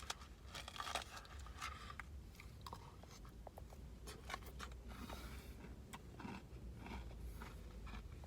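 A person chewing and eating, with irregular soft crunches and mouth clicks.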